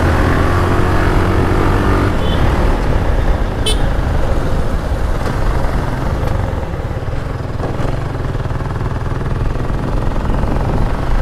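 Motorcycle engine running while riding along a road, with wind rushing over the microphone; the engine's steady note eases off about two seconds in.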